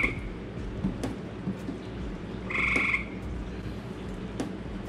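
A frog calling: short trilled calls about half a second long, repeating every two and a half seconds, one at the start and one about halfway through.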